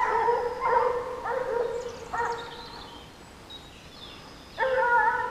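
Scent hounds baying in long drawn-out calls, giving tongue as they run a fox. The calls stop for about two seconds midway and start again near the end.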